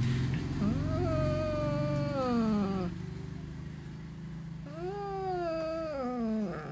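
Young tabby-and-white cat with a mouse in its mouth, giving a low steady growl under two long yowls that each sweep up and then fall in pitch. This is the possessive growl-yowl a cat makes over its catch.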